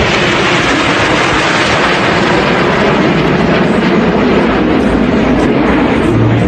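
Jet engines of a formation of small jets flying past overhead: a steady, unbroken noise.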